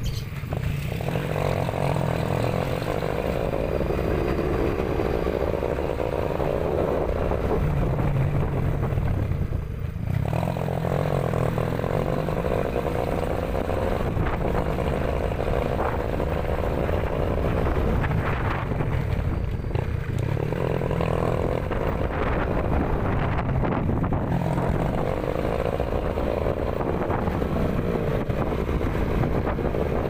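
Small motorcycle running steadily while riding along, its engine note dipping briefly about ten seconds in.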